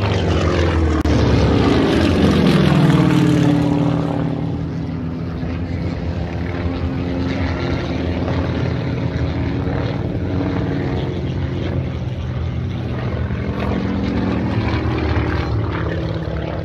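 Piston-engined propeller aircraft making a low flypast, the engine note falling in pitch as it passes, loudest about two to three seconds in. Another falling engine note, fainter, comes near the end.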